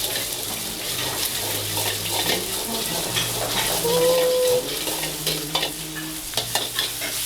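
Egg sizzling in oil in a hot wok while a metal spatula scrapes and clacks against the pan as it is stirred. A brief steady tone sounds about four seconds in.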